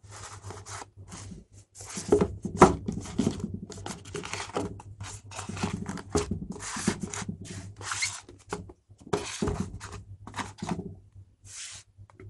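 Cardboard smartphone box being opened by hand, its printed outer sleeve slid off the inner box: an irregular run of card rubbing and scraping on card. Faint at first, busier from about two seconds in, thinning out near the end.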